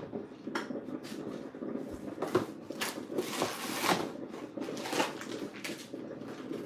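A plastic zip-top bag rustling and crinkling as it is handled, with scattered clicks and knocks; the crinkling is loudest around the middle.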